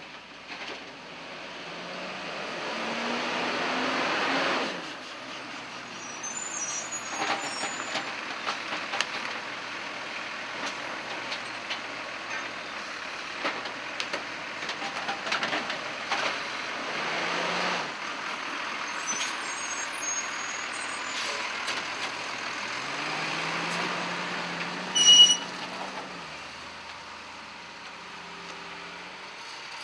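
Diesel garbage truck with an automated side-loader arm at work: the engine revs up in three rising sweeps as the hydraulic arm lifts and dumps a trash cart, with knocks and clatter from the cart and body. About 25 seconds in the air brakes give one short, loud hiss.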